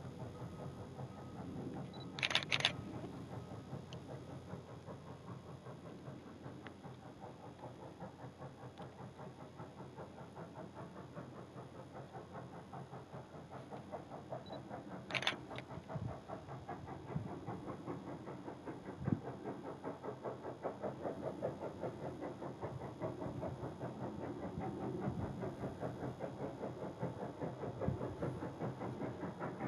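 Distant steam locomotive, Strasburg Rail Road's ex-Canadian National 2-6-0 No. 89, working hard with a steady rhythmic exhaust chuff. It grows slowly louder as it approaches. Two short high-pitched sounds cut in briefly, a couple of seconds in and about halfway.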